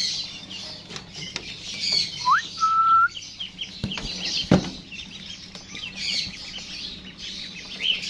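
Many caged lovebirds chirping and chattering without pause. About two seconds in, one whistle rises and then holds on a steady note, and a little later come two knocks, the second one loud.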